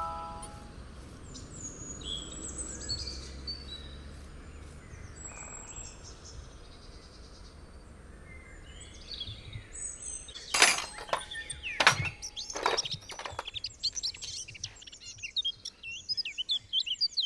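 Songbirds chirping and calling, sparse at first and busier near the end, with a few sharp knocks about two-thirds of the way through.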